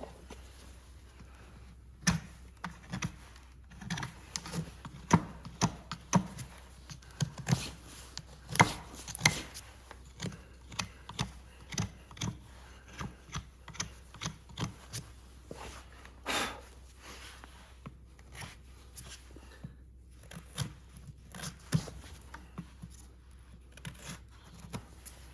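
Hoof trimming on a horse's hoof: an irregular series of sharp cutting clicks and scrapes, about one or two a second, with one longer scrape about two-thirds of the way through.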